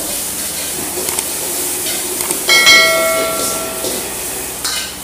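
Rice vermicelli frying in a hot wok with a steady sizzling hiss. About two and a half seconds in there is one metal clang against the wok, which rings on for about a second.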